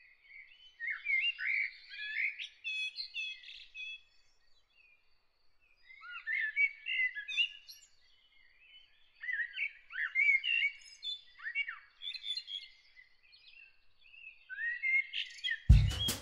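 A songbird singing in four bursts of varied, quickly changing chirps and warbles with short pauses between them, over a faint steady high tone. Music with a drum beat comes in at the very end.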